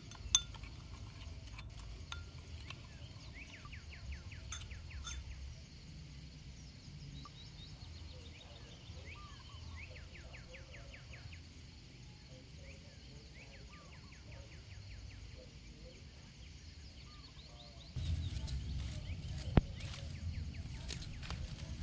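Small birds chirping in quick runs of short repeated chirps over a steady outdoor background. About 18 s in, the background gets suddenly louder and a sharp click follows shortly after.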